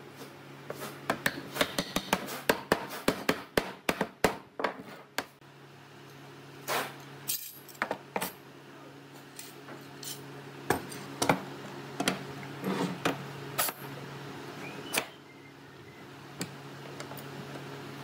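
Wooden mallet tapping a rail onto a wooden cabinet door frame in a quick run of sharp knocks, followed by scattered clanks and clicks as steel pipe clamps are fitted and tightened on the door. A steady low hum runs underneath.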